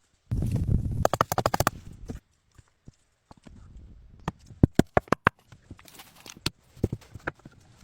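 A run of sharp knocks and taps with rustling: a dense, rapid patch in the first two seconds, then a pause, then scattered single knocks.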